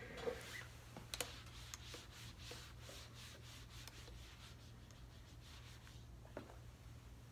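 Whiteboard eraser being wiped across a whiteboard, faint rubbing in repeated strokes that stop about six seconds in.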